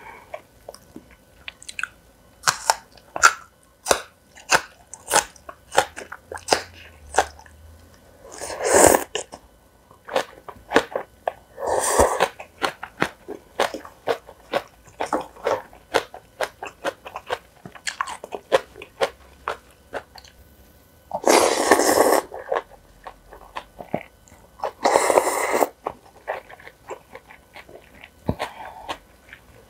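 Close-miked eating: a steady run of crisp crunching and chewing. Four times there is a louder, longer slurp of cold noodles, lasting about a second each.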